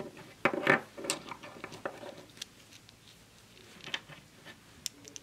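Small model-engine pump parts being handled and slotted together by hand: a cluster of clicks and rustling about half a second in, then scattered light clicks.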